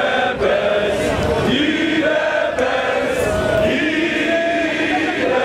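A large crowd of marchers chanting and singing together in unison, in drawn-out sung phrases.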